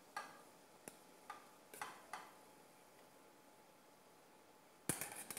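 Faint, scattered clicks and taps of a metal spoon against a stainless steel bowl as cooked rice is tipped out into a wok, with a quick cluster of taps near the end.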